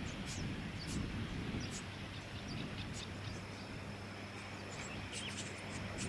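Brown-headed honeyeaters at the nest giving short, high chips, several a second in loose clusters, over a low steady hum; a thin, steady high tone joins about halfway through.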